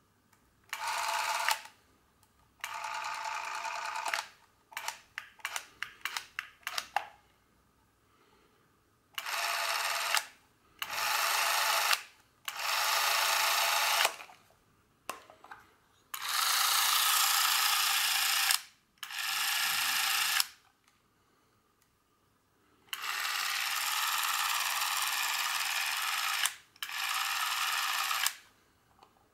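Braun Nizo 156 Macro Super 8 camera's electric motor whirring in repeated runs of one to three seconds as the trigger is pressed and released, with a string of quick short bursts about five to seven seconds in.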